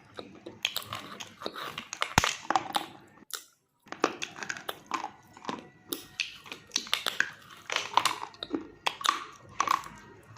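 Close-miked crunching and chewing of a brittle chalky clay, with sharp crisp crunches several times a second and a brief silent break about three seconds in.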